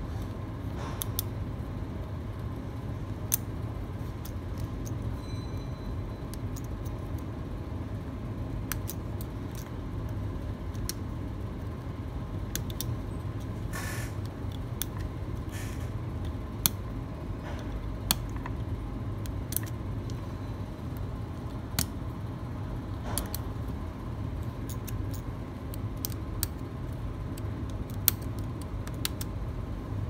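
Scattered sharp little clicks and taps, irregularly spaced, of a repair tool working the opened iPhone X as its flex cable connectors are disconnected one by one, over a steady low hum.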